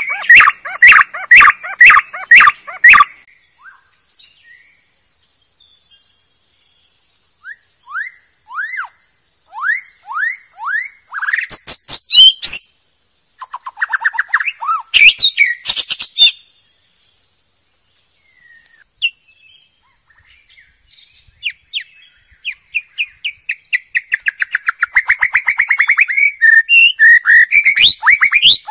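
White-rumped shama (murai batu) singing in varied phrases with pauses between them. There are fast runs of repeated notes, rising whistled notes and a long rapid rattling series near the end. A faint steady high trill sits under the song for much of the first half.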